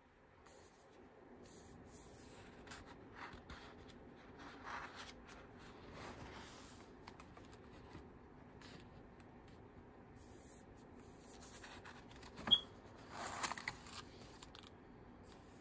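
Pages of a spiral-bound Canson XL sketch pad being turned and handled: faint paper rustles and scrapes, with a sharp click about twelve seconds in, followed by a louder rustle.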